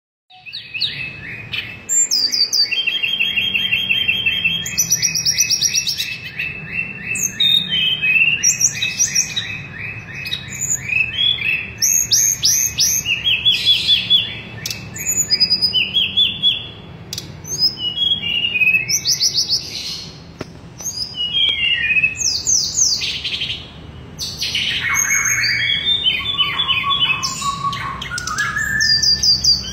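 Caged tledekan, a blue-and-orange flycatcher kept as a songbird, singing at full strength ("gacor"): a long, almost unbroken high song of fast trills, rapidly repeated notes and gliding whistled phrases. A faint steady low hum runs underneath.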